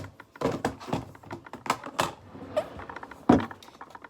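Eyeshadow palettes being handled and set down on a hard surface: an irregular run of clicks and knocks, with the loudest knock about three seconds in.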